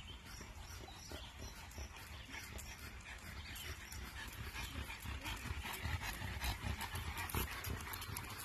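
A pack of leashed dogs and their walkers approaching on an asphalt path: shoe and paw steps with small clicks and dog sounds, growing louder as they near and pass.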